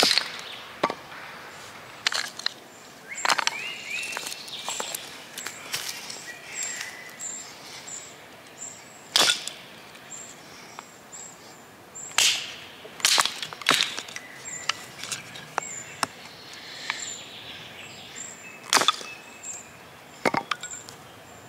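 Hand-forged trekking hatchet chopping into and splitting small pieces of wood on a stump: about a dozen sharp chops and cracks at irregular intervals. Behind them a faint high chirp repeats about twice a second.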